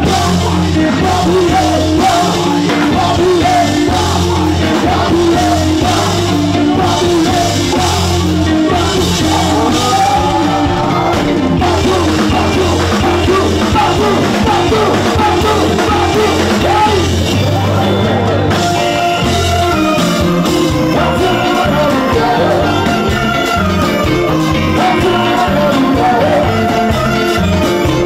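Live band music: electric guitar and bass over a steady beat, with a singer's voice.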